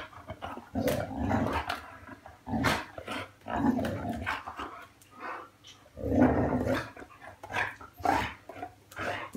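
Two large dogs, a Belgian Malinois-type shepherd and a Doberman, play-fighting with rough growls and grumbles that come in short bouts about a second apart, mixed with a few sharp snaps.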